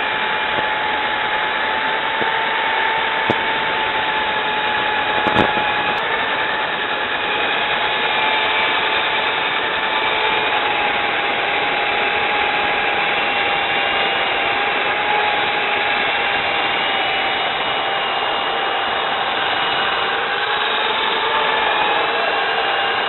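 Electric drill spinning a soft-backed sanding disc against a wooden hat turning on a lathe: a steady motor whine that wavers slightly in pitch, over the hiss of abrasive on wood. A single sharp tap about five seconds in.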